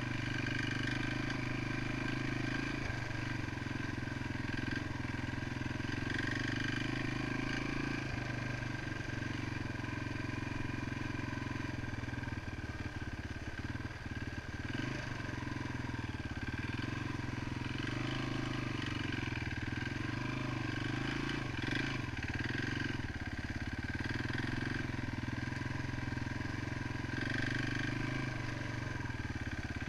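1993 Yamaha XT350's single-cylinder four-stroke engine running steadily as the dirt bike is ridden, with a brief dip around the middle as the throttle eases.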